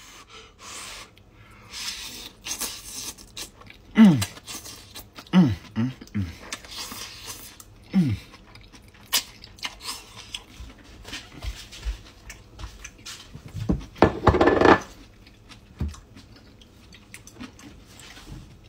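A man slurping and chewing a mouthful of hot chow mein noodles, with chopsticks clicking against a glass bowl. Between bites come several short, falling hums, the first about four seconds in, and a longer one near the end.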